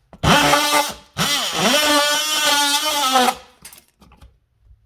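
Oscillating multi-tool running in two bursts, a short one and then one of about two seconds, each opening with a rising whine as the motor spins up, while cutting an opening in sheetrock for an outlet box.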